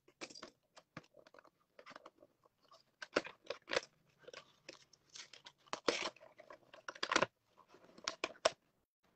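Small cardboard booster box being opened by hand, with the contents pulled out. Irregular crinkling, tearing and scraping of card and packaging, with sharp clicks, louder about three, six and seven seconds in.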